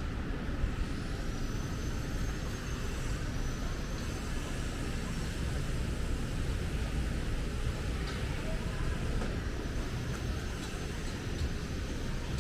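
Steady city traffic noise, a continuous rumble of passing vehicles, with a faint high whine that rises and falls twice.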